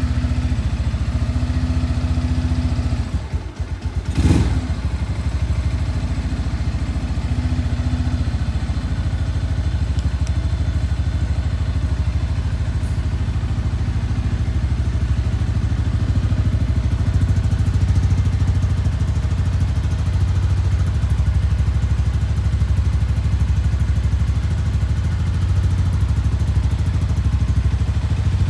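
Shelby Renz 200 motorcycle engine, a Chinese Ninja 200 replica, running steadily at a low idle, with a brief dip and a sharp knock about four seconds in.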